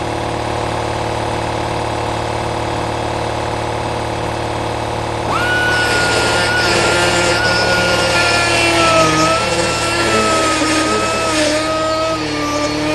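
Two-cylinder air compressor running steadily; about five seconds in, an air grinder starts with a high whine that wavers in pitch as it bites into the work under load.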